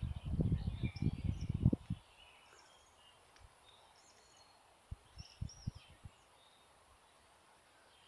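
Small songbirds chirping and trilling in a spring woodland. Dull low thumps on the microphone are loudest during the first two seconds, and a few more come about five seconds in.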